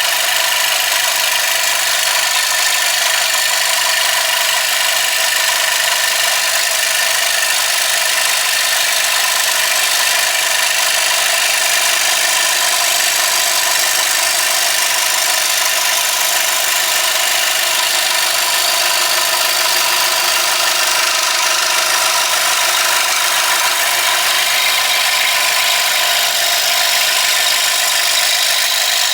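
Scroll saw running steadily with an even hum, its reciprocating blade cutting a push stick out of a wood board.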